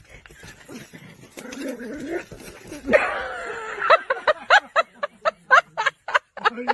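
A dog whining: a longer whine about three seconds in, then a quick run of short cries, about three or four a second.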